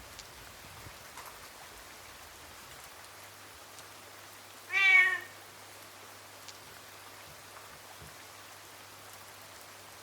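A domestic cat meows once, briefly, about halfway through, over a faint steady hiss of rain.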